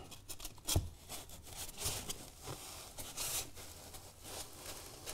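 Hands pressing and sliding slabs of insulation foam into place against a backboard, bedding them into wet adhesive: soft rubbing and scraping with a few light knocks.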